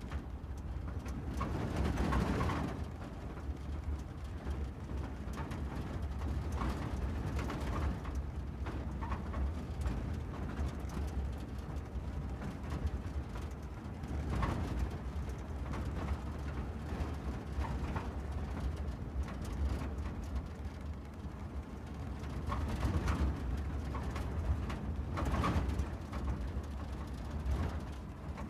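Steady low rumble of a car driving, with several louder swells along the way.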